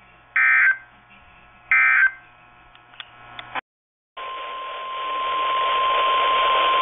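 NOAA Weather Radio alert audio: two short warbling digital data bursts of the EAS/SAME code, about a second apart, the close of an end-of-message signal. After a brief dropout about four seconds in, the steady 1050 Hz weather radio alert tone comes in over radio static.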